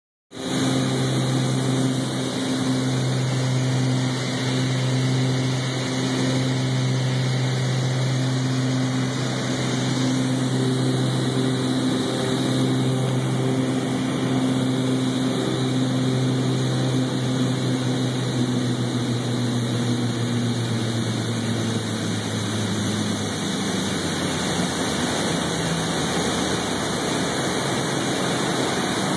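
Cessna 310's twin six-cylinder piston engines and propellers droning steadily inside the cabin over rushing air noise on final approach. About three-quarters of the way through, the drone drops in pitch and fades as power is pulled back for landing, leaving mostly the rush of air.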